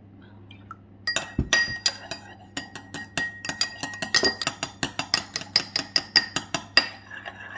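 Metal spoon clinking rapidly against the inside of a small ceramic bowl while an oil-and-vinegar dressing is stirred, about five strikes a second, the bowl ringing after each. It starts about a second in.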